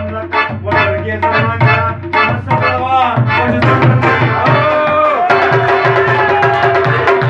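Rubab plucked in quick strokes, with tabla drumming alongside. From about five seconds in, steady held tones sound over the drum strokes.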